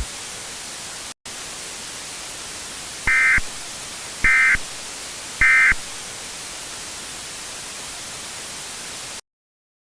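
Steady static hiss broken by three short high-pitched digital data bursts about a second apart: the Emergency Alert System's end-of-message tones that close an alert. The hiss drops out for an instant about a second in and cuts off to silence near the end.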